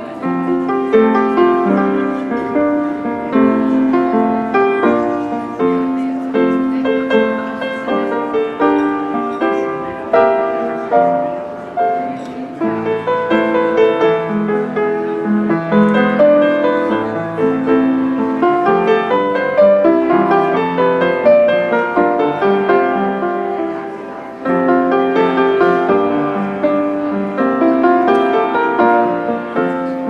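Upright piano being played: a continuous piece of many quick notes, low and high together, with a short lull about 24 seconds in before the playing picks up again.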